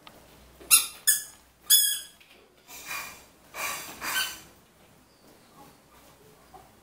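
Plastic toy kitchen parts and play balls being handled: three short, sharp, high squeaks in quick succession in the first two seconds, then two softer scraping rubs a little later.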